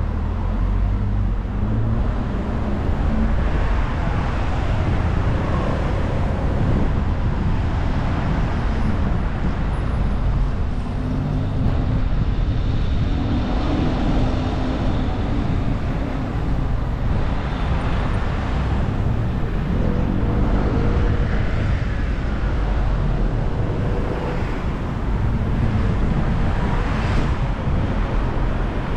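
Road noise from a car being driven: a steady rumble of engine and tyres that swells and eases several times.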